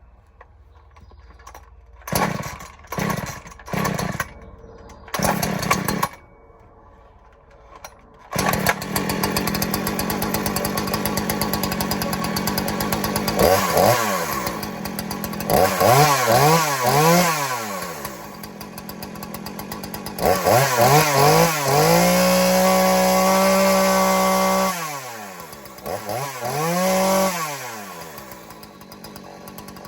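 Husqvarna 240 two-stroke chainsaw being pull-started: four short sputters on the starter cord, then it catches about eight seconds in and runs. It is revved up and down several times, with one rev held high for a couple of seconds.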